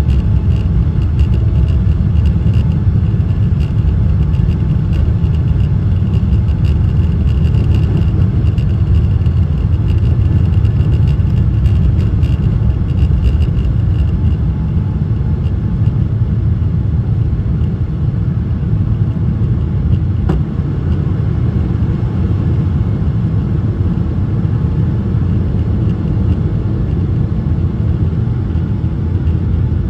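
Boeing 777-300ER's GE90 engines at takeoff thrust, heard from inside the cabin as a loud, steady deep rumble during the takeoff roll and initial climb. A thin high whine fades out about halfway through, and the rumble eases a little after that.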